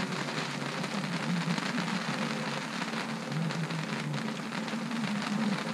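Hailstorm: hail pattering steadily on a surface, a dense run of small impacts.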